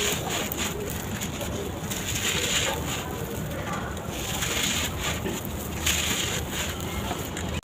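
Sand-cement bars crumbling on a floor: gritty crunching that swells roughly every two seconds, with many small clicks of falling grit.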